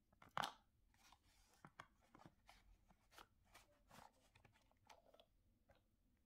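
Faint handling noise of a small cardboard box and its plastic tray: scattered light clicks and rustles as the packaging is fitted together and the sleeve slid on, with one louder knock about half a second in.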